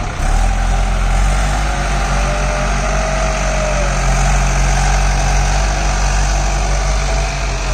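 Bull Challenger CH76 backhoe loader's diesel engine running steadily under load as the machine drives over loose soil and lifts its front loader bucket. A faint whine rises and falls around the middle.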